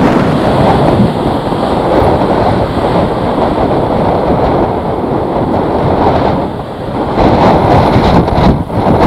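Strong gusting wind buffeting the microphone: a loud, rough rushing that swells and eases, dropping briefly about six and a half seconds in.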